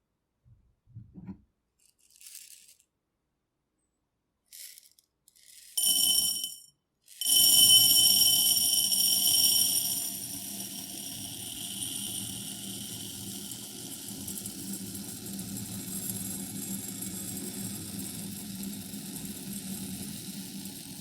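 Buckwheat grains poured into a glass bowl: a few faint taps and rustles, a short burst about six seconds in, then a steady stream of grains from about seven seconds. The bowl rings clearly as the first grains strike the glass; after about ten seconds this settles into a softer, even patter as the grains land on each other.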